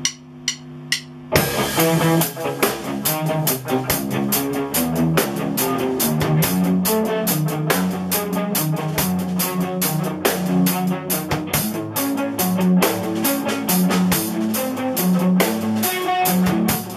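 Electric guitar and a Pearl drum kit playing rock together live. A few sharp ticks sound over a held guitar note, then the full drums and guitar come in together about a second in.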